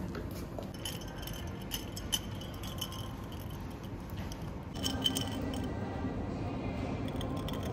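Ice cubes clinking against a glass as an iced americano is stirred with a straw: a run of light clinks over the first few seconds.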